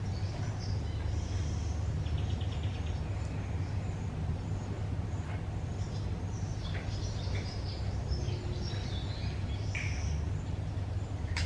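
Small birds chirping in short, scattered high calls, with a brief rapid trill about two seconds in, over a steady low rumble.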